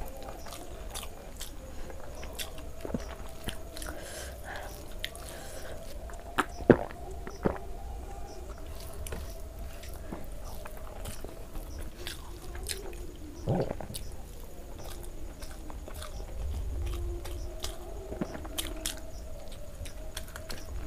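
Close-miked chewing and wet mouth smacks of a person eating rice with curry by hand, with a few louder sharp clicks about a third and two thirds of the way through, over a faint steady hum.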